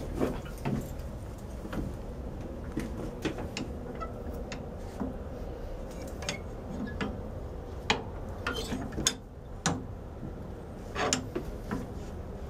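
Irregular light metallic clicks and knocks: hands working the latch and levers of a steam locomotive's butterfly fire door, which is bolted shut and won't open.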